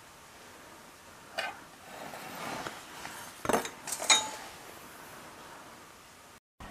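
A black steel square set down and slid into position on a pine board: a knock about a second and a half in, some scraping, then a couple of sharp metallic clinks with a brief ring near four seconds in.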